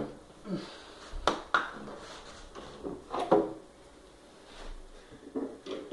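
Handling noise from a dance-pad bar frame and its plywood base being shifted into place: several sharp knocks a second or two apart, with short scrapes and rubbing between them.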